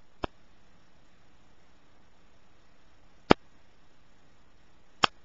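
Three sharp, isolated clicks over a faint hiss, the second one the loudest: a small precision Phillips screwdriver's metal tip clicking on the tiny screws of an iPod Touch's metal retainer board as they are taken out.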